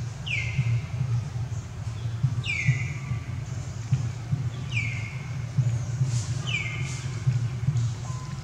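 A bird calling over and over: a short high call that sweeps down in pitch, about every two seconds, over a steady low rumble.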